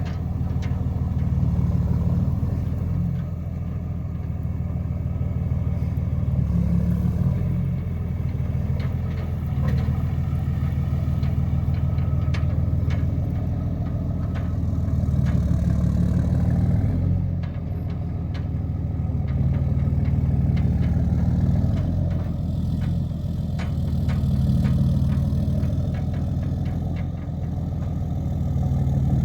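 Vehicle engine running at low speed, its sound rising and easing every few seconds as it is worked, with a few light clanks.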